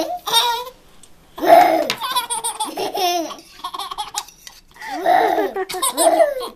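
A baby laughing hard in several bouts, with a young child laughing along.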